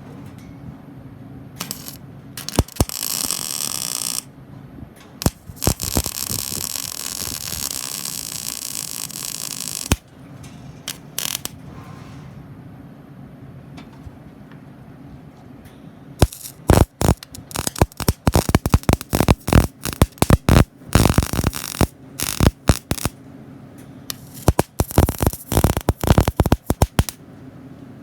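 Electric arc welding on steel: the arc crackles and sizzles in a short run, then a steadier run of about four seconds, then many short sputtering strikes and tacks in quick succession in the second half. A steady low hum from the welding machine runs underneath.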